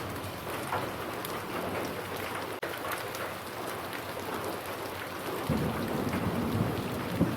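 Steady rain falling, with scattered individual drops ticking. About five and a half seconds in, a low rumble of thunder begins and builds.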